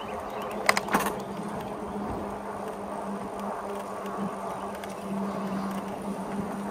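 E-bike's electric motor whining steadily under way, over tyre and wind noise, with two sharp clicks about a second in.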